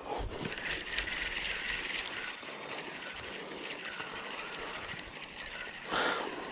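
Fishing reel being wound to bring in a hooked fish: a steady whirring with faint ticks, and a short louder noise about six seconds in.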